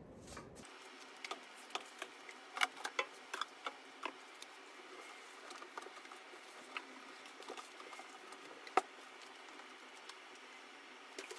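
Faint, scattered clicks and taps of hands handling plastic 3D-printer parts and a cable, most of them in the first few seconds, with one sharper click later on.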